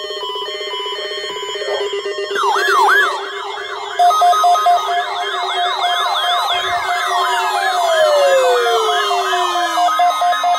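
Several electronic siren and alarm sounds layered together. A harsh buzzing alarm tone runs first; from about two and a half seconds in a rapid yelping siren takes over, joined by a pulsing beep and a long wail that falls steadily in pitch.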